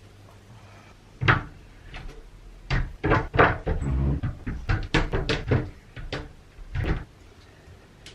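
Household knocks and bangs, a dozen or so sharp ones in quick succession over about six seconds, of the kind cupboard doors and handled objects make.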